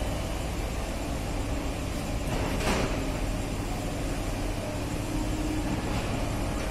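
Steady hum and hiss of an electric commuter train standing at a station platform, with rain falling, and a brief hiss about two and a half seconds in.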